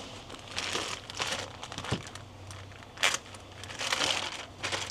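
Packaging crinkling and rustling in irregular bursts as a new VTC cam gear is unwrapped and handled, with a sharp click about two seconds in.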